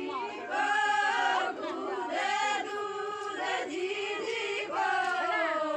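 A group of voices sings a Meena folk song together, chant-like, over crowd noise. About five seconds in, the voices hold a long note that slides downward.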